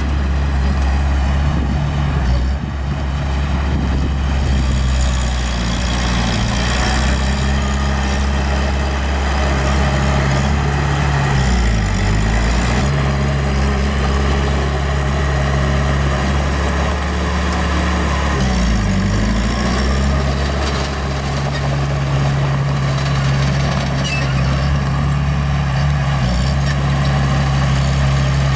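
Small bulldozer's diesel engine running steadily at a low pitch. Its note dips briefly and recovers twice, about 12 and 19 seconds in.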